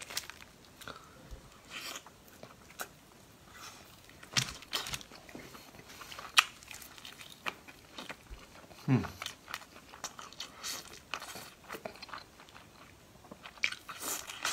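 Close-up eating sounds of whole cooked chicken: meat being torn apart by hand, then chewed and bitten, with scattered crunches, smacks and wet clicks. A short hum comes about nine seconds in.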